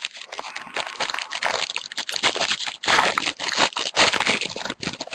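Crinkling and tearing of a trading-card pack wrapper as it is torn open, a dense irregular crackle that lasts a few seconds.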